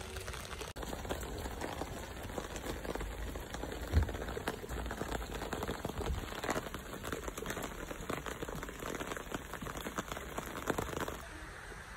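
Dense pattering of many small drops, like rain falling on a hard surface. It starts abruptly under a second in and stops just after eleven seconds, with a single sharper thump about four seconds in.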